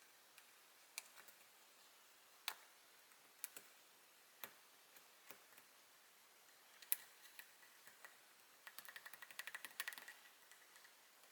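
Light hard clicks and taps, scattered every second or so, then a quick run of rapid clicks about nine seconds in.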